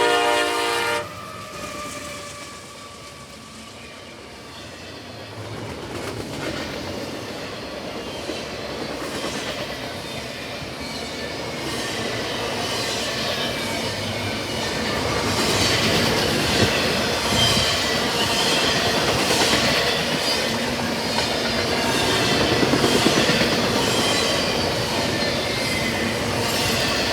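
A CSX freight locomotive's K5LA horn chord cuts off about a second in. Then a double-stack freight train passes, growing louder, its wheels clattering over the rail joints in a steady rhythm, with a thin squeal from the wheels.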